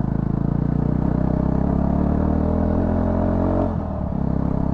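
Yezdi Scrambler's 334 cc single-cylinder engine running with its silencer removed, giving a loud open exhaust note as the bike is ridden. The note dips briefly near the end, then carries on steadily.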